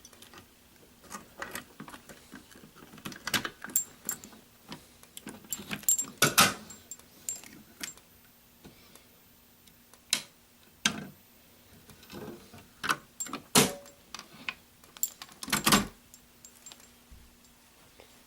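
A bunch of keys jangling amid irregular clicks and knocks as a fire alarm pull station is unlocked and reset with its key.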